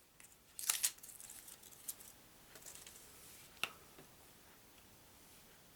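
A deck of playing cards being handled: a few short, crisp rustles and clicks of card stock, the loudest about a second in, with softer rustling and a last tap before it settles.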